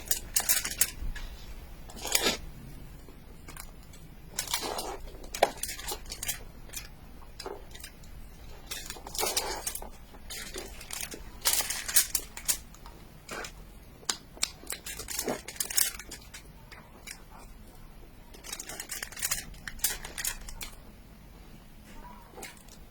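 Plastic packaging of a mochi cake being cut and torn open: irregular crinkles, snips and crackles, with short pauses between them.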